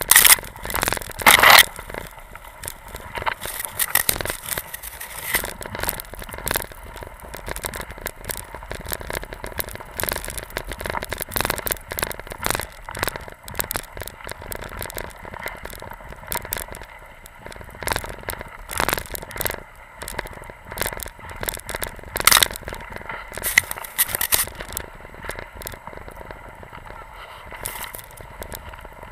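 Hok skis scraping and crunching through deep fresh snow behind a pulling dog team: an uneven, crackling scrape with a few louder bursts near the start and again about two-thirds of the way through.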